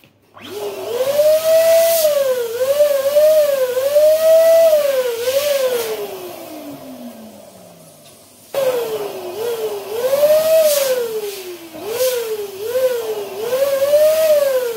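Small electric balloon pump motor running as balloons are inflated, its whine rising and falling in pitch again and again. About six seconds in it winds down with a long falling whine, then starts again abruptly about two and a half seconds later.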